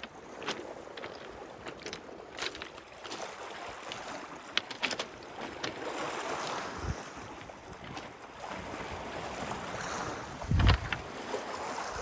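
Small waves lapping on a rocky shore, with scattered clicks and crunches of footsteps on beach stones and a single low thump near the end.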